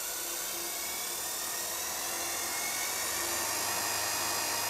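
Record Power Coronet Herald wood lathe running up to its top speed of about 1055 rpm on the first belt step: a steady, quiet whine that rises slowly in pitch and grows a little louder. The noise comes from the DC motor's cooling fan and the poly-V belt drive; the motor itself is nearly silent.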